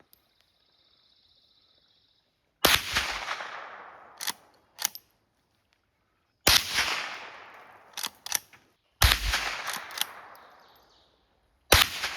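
Four shots from a Henry lever-action .22 LR rifle firing 40-grain Remington Ranch Hand rounds, about three seconds apart. Each report has a short fading echo, and softer sharp clicks come between the shots as the lever is worked.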